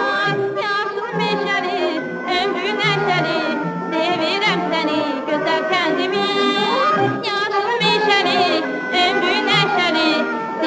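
Background music: a singing voice with heavy vibrato over an accompaniment with a repeating bass line.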